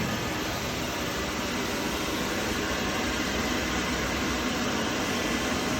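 Industrial microwave drying machine running: a steady, even machine hum and hiss with a faint steady whine.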